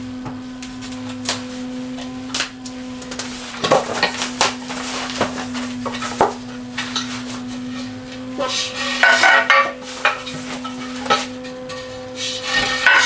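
Aluminium roof-rack bars clinking and knocking against each other as they are handled and laid down, with plastic and foam wrapping rustling as it is pulled off. A steady low hum runs underneath.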